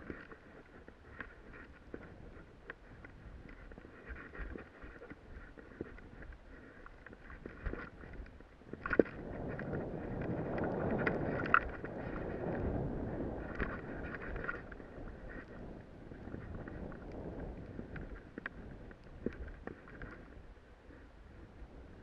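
Scraping hiss of sliding downhill over tracked, wind-packed snow, mixed with wind rushing over the camera's microphone. The rush swells from about nine seconds in for several seconds, with a few sharp knocks as the ride hits bumps.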